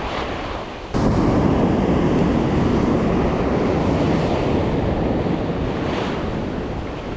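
Ocean surf washing onto the beach with wind buffeting the microphone: a loud, even rushing noise that jumps up sharply about a second in and eases off slowly toward the end.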